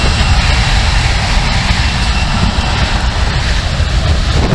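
Jet airliner flying low overhead on its landing approach, a loud, steady engine rumble with a deep low end.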